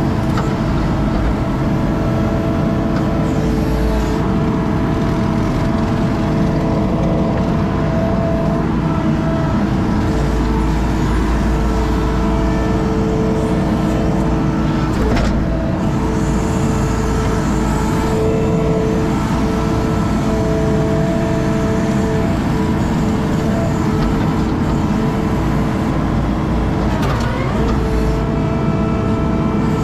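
Skid steer engine running steadily under work, with steady whining tones over a low rumble and a couple of brief knocks, about halfway through and near the end.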